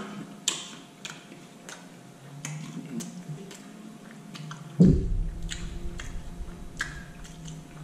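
Close-up mouth sounds of someone chewing food, with many short wet clicks and smacks. About five seconds in comes a single dull low thump.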